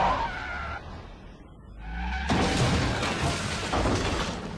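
Movie soundtrack: a car smashing through a building's glass front doors, with glass shattering and a sudden loud crash about two seconds in, over the film's music.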